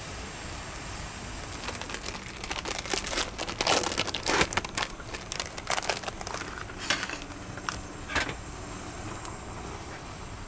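Plastic food packaging crinkled and torn open by hand, a run of crackles that is loudest about four seconds in and dies away near the end, over a steady background hiss.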